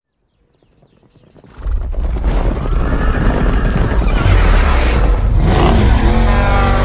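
Cinematic intro soundtrack: a deep, loud rumbling boom swells in after about a second and a half, and a horse whinnies with a wavering pitch near the end.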